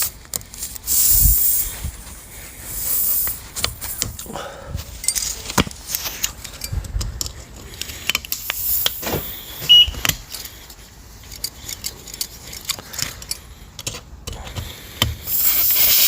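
Scattered metallic clicks and scrapes of a hand tool working a deeply embedded screw out of a tubeless car tyre's tread, with patches of hiss between them.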